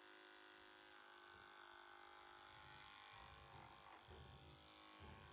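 Cordless horse clipper running, a faint steady electric hum as its blade trims hair on a horse's face, with a few soft low bumps in the second half.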